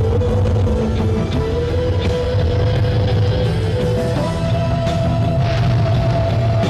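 Rock-style background music with a steady drum beat and bass under a held lead melody that steps up in pitch about four seconds in.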